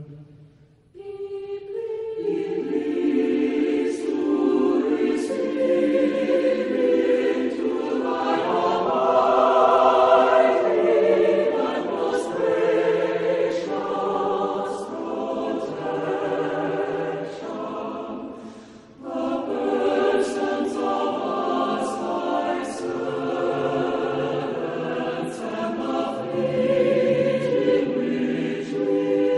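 Choral music: a choir singing long held chords. It comes in about a second in and breaks off briefly a little past halfway.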